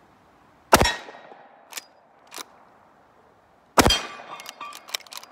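Two shots from a .45 Colt Model 1892 lever-action rifle with a 12-inch barrel, about three seconds apart, each with a short ringing tail. Between them the lever is worked with two clicks, and after the second shot it is cycled again with a quick run of lighter clicks.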